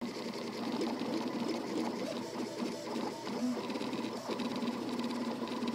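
MakerBot 3D printer with Gen4 electronics printing at high speed on Jetty's Accelerated Firmware: its stepper motors whirr in quick back-and-forth moves, the pitch jumping with every change of direction, over a steady hum.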